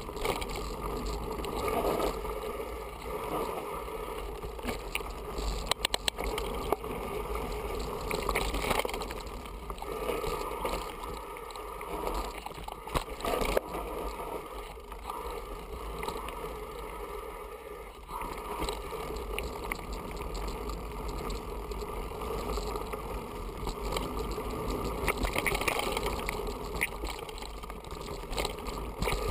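Mountain bike riding down a dirt forest trail: a steady rumble and rattle of tyres and frame over the ground, with sharp knocks here and there as it hits bumps and stones.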